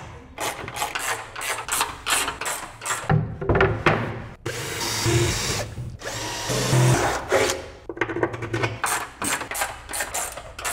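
Cordless drill driving screws into plywood boards in short bursts, with sharp knocks and clatter between them, and a longer run of the drill about four and a half to six seconds in.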